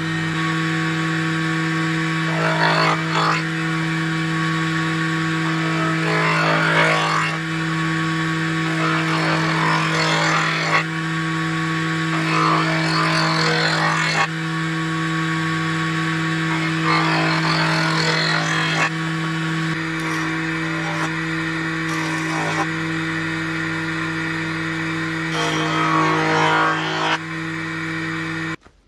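Belt-driven jointer (surface planer) running with a steady motor hum, its cutterhead loudly shaving wood several times as boards are fed across it, each pass lasting a second or two. The sound cuts off suddenly near the end.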